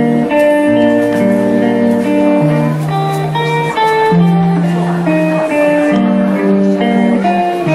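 Live instrumental intro played on two electric guitars with an electronic keyboard: held chords that change about once a second, at a steady level.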